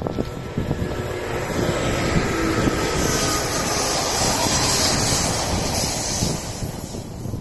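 Rushing noise of a passing vehicle that swells to a peak a few seconds in, with a faint whine, then fades near the end.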